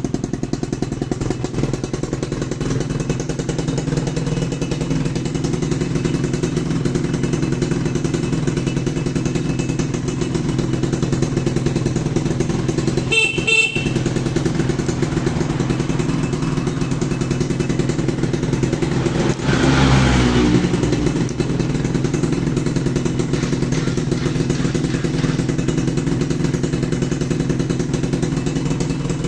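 Suzuki Tornado 110's small single-cylinder engine running steadily at idle. About halfway through there is a brief high tone, like a short horn beep, and about two-thirds through a short, louder burst from the engine.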